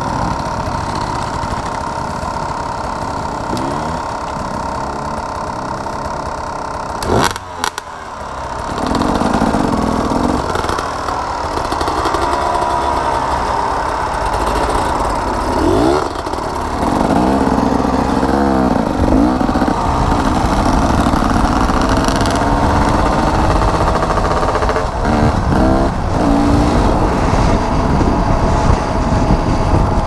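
Dirt bike engines running and revving, the pitch rising and falling again and again as the bikes pull away and ride off; a brief break comes about seven seconds in.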